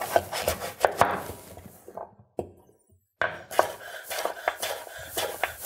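Chef's knife cutting raw butternut squash into cubes on a wooden cutting board: a run of sharp knife strikes against the board, with a short break about halfway through before the cutting resumes.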